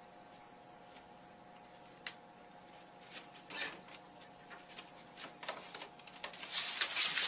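Inkjet printer running as it feeds paper out, with clicks from the mechanism and paper rustling. There is a faint hum at first and a single click about two seconds in, and then the clicking gets busier and louder toward the end.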